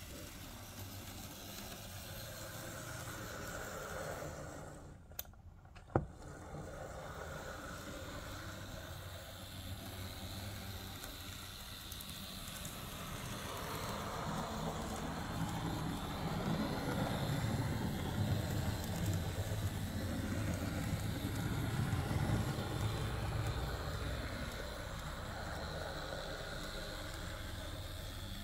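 Tiny electric motor of a Z-scale Union Pacific SD40-2 model locomotive whirring as it runs round the track, its wheels rolling on the rails, louder through the middle stretch as it passes close. Two sharp clicks about five and six seconds in.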